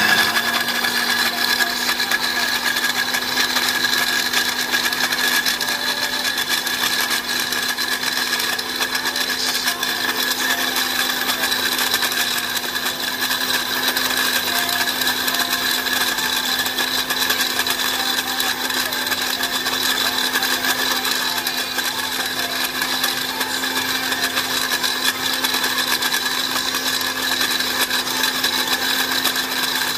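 Electric countertop blender motor switching on and running steadily, grinding lemon peel pieces in water into a pulp. It is a re-blend to crush the peel finer, and its hum creeps slightly higher in pitch as it runs.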